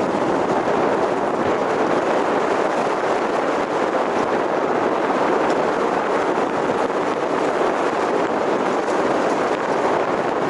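A car driving at a steady pace: even, unbroken road and wind noise with no distinct events.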